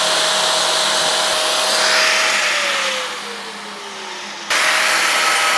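Angle grinder running against welded steel, cleaning up the welds on the hinges. Its whine falls in pitch as the grinder winds down, from about halfway through. The loud grinding noise comes back suddenly about a second before the end.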